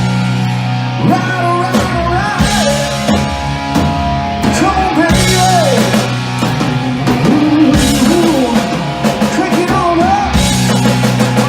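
Live rock band playing loud: an electric lead guitar bends and slides between notes over steady bass and drums.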